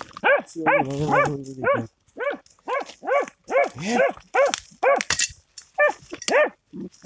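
Hunting dog barking rapidly at an animal hidden in a hole in the ground: a steady run of sharp barks, two or three a second, with one longer, drawn-out call about a second in.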